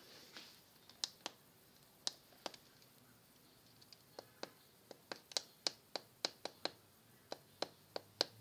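A series of sharp, hard clicks or taps, a few scattered at first, then coming about two or three a second from about halfway through.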